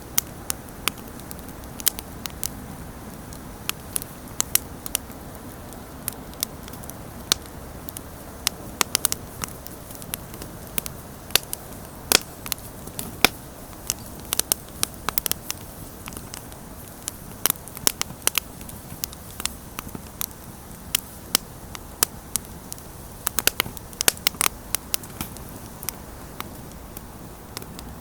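Campfire burning with a steady low rush of flame and irregular sharp crackles and pops from the wood.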